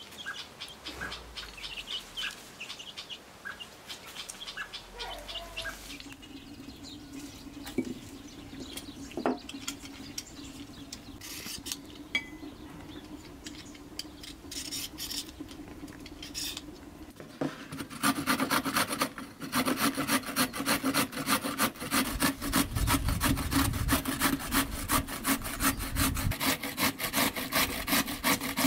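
Carrots being grated on a metal box grater: quick, even rasping strokes starting about two-thirds of the way in, the loudest sound here. Before that, scattered scrapes of a hand peeler on carrots.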